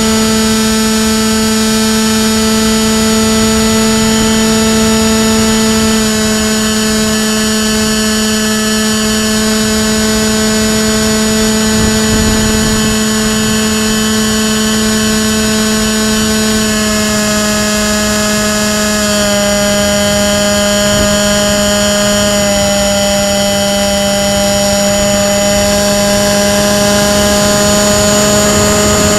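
Electric motor spinning an APC 6x4E propeller on an RC FPV glider, heard from the onboard camera: a loud, steady drone whose pitch steps slightly lower a few times as the motor speed eases, with rushing air noise underneath.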